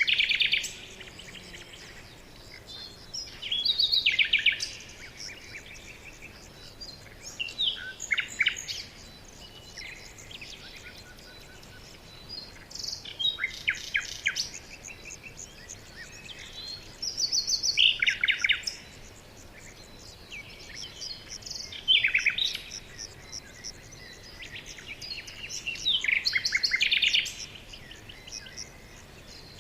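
Songbirds singing in short, rapid trilled phrases, one about every four seconds, over a faint steady background hiss.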